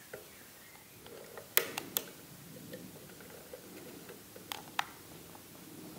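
Light handling at a soldering bench: a quick run of three sharp clicks about a second and a half in, then two more clicks a little before the end, over faint rustling of hands and metal parts.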